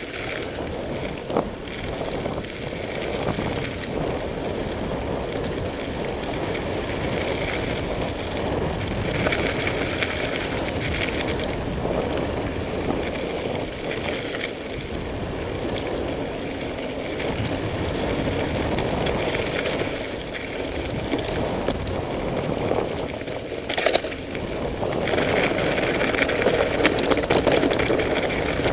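Mountain bike rolling fast down a rough dirt and stone moorland trail: tyres crunching over gravel and the bike rattling over bumps, with a sharp knock near the end and wind buffeting the microphone.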